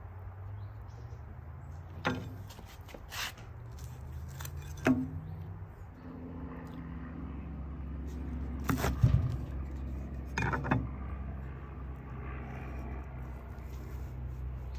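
Knife cutting through a grilled pork chop on a wooden cutting board: a few short knocks and clicks, the loudest about nine seconds in as the blade goes through and meets the board, over a steady low rumble.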